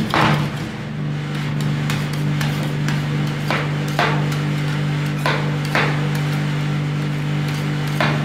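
Metal spatulas chopping and striking a frozen stainless-steel ice cream pan: a handful of sharp metallic clacks at irregular intervals, over a steady low hum.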